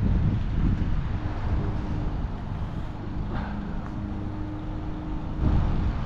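A motor vehicle's engine running with a steady low hum.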